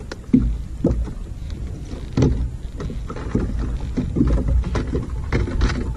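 Small waves slapping and splashing irregularly against a fishing kayak's hull, over a steady low rumble of wind on the microphone.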